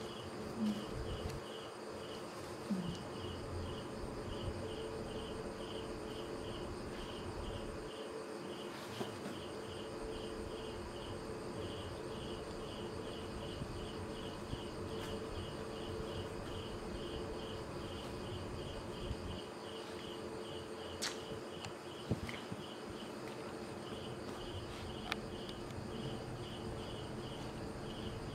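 A cricket chirping in an even pulse, about three or four chirps a second, pausing briefly about three quarters of the way through, over a steady low hum, with a few faint clicks.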